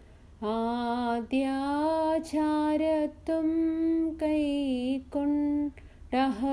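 A woman singing a kolo, a verse of a Malankara Orthodox liturgical hymn in Malayalam, solo and unaccompanied, slowly in long held notes with short breaths between phrases; the singing begins about half a second in.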